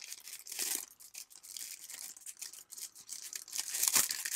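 Thin clear plastic bag crinkling and rustling as it is handled and opened, with a run of short crackles and a louder crackle about four seconds in.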